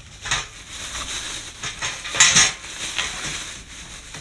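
Metal parts of a mini portable charcoal grill being handled and taken out: a few short clattering knocks and rustles, the loudest about two seconds in.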